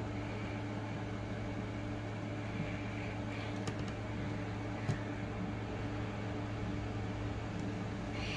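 Steady low hum of room background noise, with a couple of faint light clicks around the middle.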